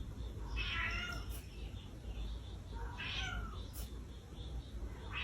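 A cat meowing twice: short, high-pitched calls about two seconds apart.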